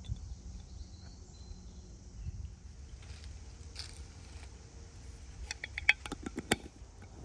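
A quick run of sharp clicks and light clinks from glass spice jars and a spoon being handled at a bowl of falafel mix, about three-quarters of the way in, with a few scattered clicks before it.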